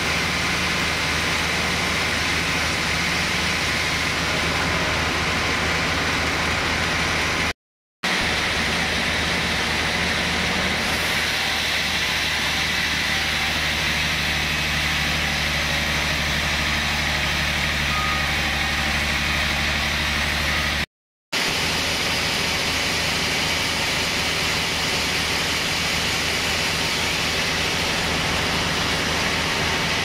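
Band sawmill machinery running steadily: a constant low hum with an even hiss over it, cutting out for a moment twice.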